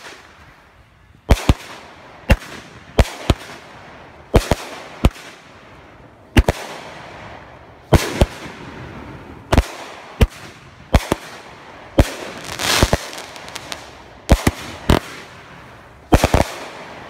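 Aerial fireworks going off: about twenty sharp bangs at irregular intervals, often in quick pairs. Between them comes the hiss and crackle of the bursting stars, with a longer crackling stretch a little past the middle.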